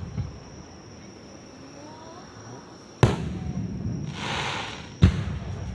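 Aerial fireworks shells bursting: two sharp bangs about two seconds apart, each followed by a rolling low rumble, with a short crackling hiss between them.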